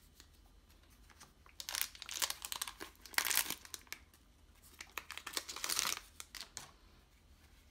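Foil trading-card booster pack wrapper being torn open and crinkled by hand, in three short bursts of rustling.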